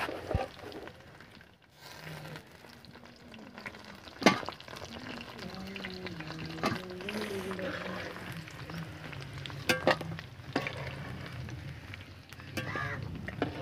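Potato pakoras deep-frying in hot oil in a kadhai, a steady sizzle, with a few sharp clinks of the metal slotted spoon against the pan and steel plate as the fried pakoras are lifted out.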